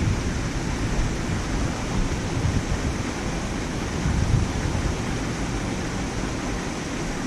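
Wind blowing across the microphone: a steady rushing noise with uneven low buffeting rumbles.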